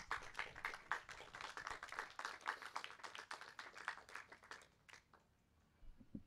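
A small audience applauding, dying away after about five seconds.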